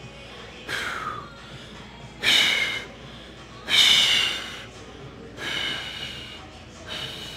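A man breathing out hard five times, each sharp breath lasting half a second to a second, about one and a half seconds apart, the second and third the loudest: forceful exhales while flexing bodybuilding poses with a pumped back.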